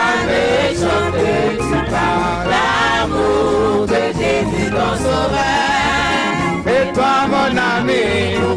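Live gospel music: a man sings into a microphone over a choir and a band, with a steady bass line and drum beats.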